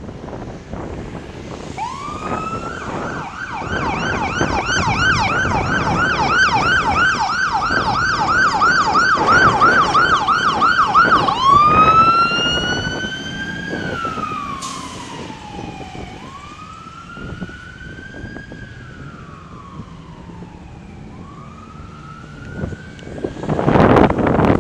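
A fire engine's siren starts with a rising wail, then runs a fast yelp at about two to three cycles a second. About halfway through it switches to a slow wail that rises and falls and fades as the engine moves off. Wind buffets the microphone near the end.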